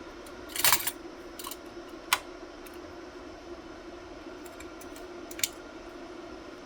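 Sharp clicks and a short rattle of small computer hardware being handled during a CPU swap, over a steady low hum.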